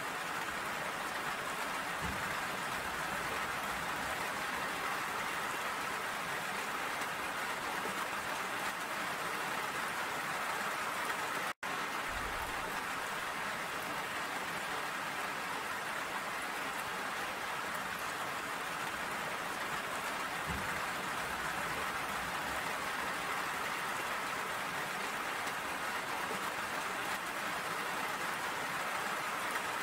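Steady rain falling, an even hiss of many drops, with a split-second dropout about a third of the way through.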